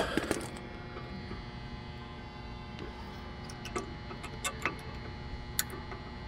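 A few light metallic clicks, brake pads and their clips being handled and fitted into a disc brake caliper bracket, over a faint steady hum. The clicks come singly from about three seconds in.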